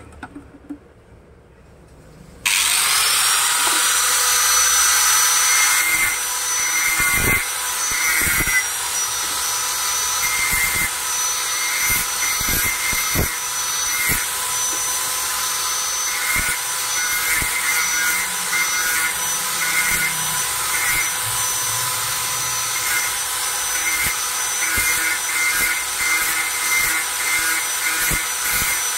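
Handheld angle grinder starting up about two and a half seconds in, then running steadily with a high whine while its disc grinds the steel blade of an ID-card punch cutter to sharpen its edge. The grinding noise comes and goes as the blade is pressed on and eased off.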